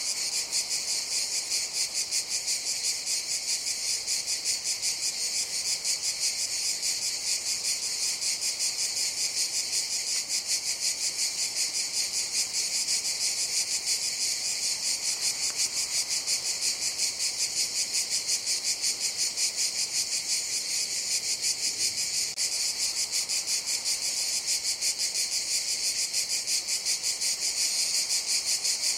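Cicadas calling in a steady, high-pitched chorus with a fast, even pulse.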